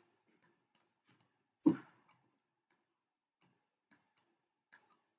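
Faint, scattered clicks of a computer mouse, with one louder brief noise about a second and a half in.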